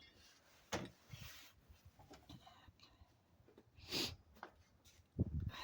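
A few scattered knocks and clicks from handling tools and hardware during a truck-bed tool box installation, with a short rustle about four seconds in and a louder thump near the end.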